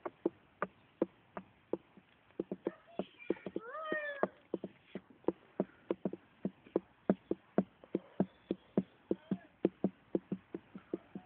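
Playground spring rocker being rocked, its coil spring and fittings clicking in a steady rhythm of about two to three clicks a second, with one short squeaky squeal rising and falling about four seconds in.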